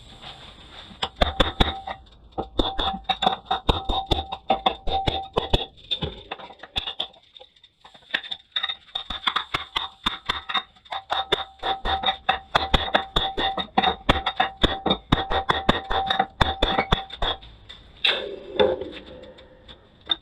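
Hand hammer blows driving a drift through the hot eye of a forged hammer head set on a bolster, a fast run of ringing metal-on-metal strikes about three a second, with a pause of a couple of seconds around the middle.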